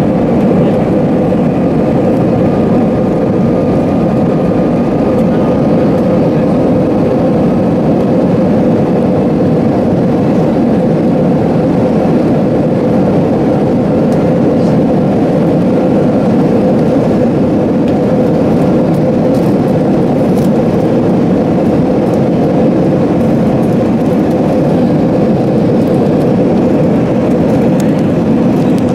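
Airbus A321 jet engine and airflow noise heard inside the passenger cabin while the airliner climbs out after takeoff: a loud, unbroken drone with a steady hum running through it.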